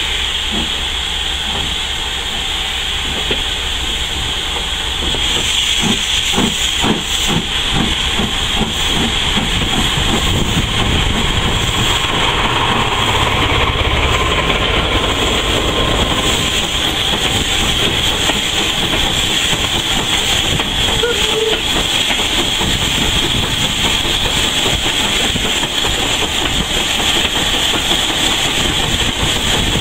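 Heritage train running: a steady hissing rush, with a short run of clicks early on.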